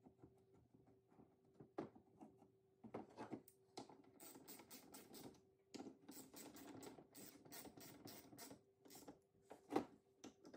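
Small hand tools scratching and clicking against a motorcycle brake caliper as it is screwed back together. The sounds come as quiet, irregular scrapes and taps, with one sharper click near the end.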